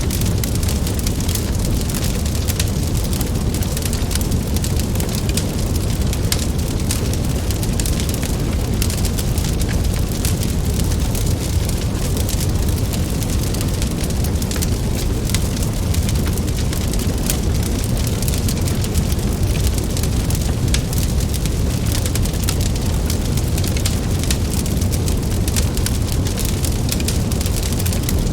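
Wood fire burning, with many small sharp crackles over a steady low rumble.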